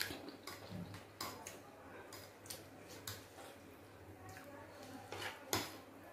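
Close-miked eating sounds of spaghetti: wet chewing and lip smacks with irregular light clicks of a fork against the plate, the sharpest click about five and a half seconds in.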